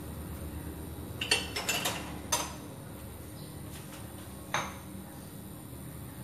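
Kitchen dishes and utensils clinking: a quick run of sharp clinks about a second in, another just after, and a single clink about four and a half seconds in.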